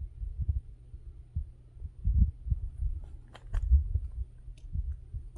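Low, gusty rumble of wind buffeting the microphone, rising and falling unevenly, with a few sharp clicks about three and a half seconds in.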